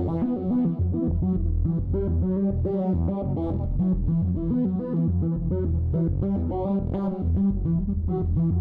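Electronic loop from a subtractive digital synthesizer-sequencer: a quick run of short notes over a heavy bass line.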